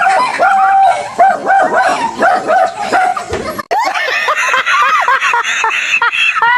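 Dog barking and yelping rapidly in high-pitched runs, the frightened alarm barking of a dog facing a plush tiger it takes for real.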